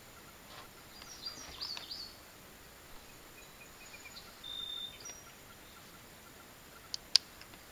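Birds chirping and whistling over a quiet background, then two short sharp clicks about a quarter second apart near the end, the second much louder.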